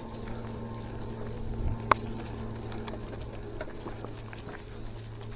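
Ozark Trail mountain bike rolling along a dirt trail: a steady low rumble of tyres and rushing air, with one sharp clack about two seconds in.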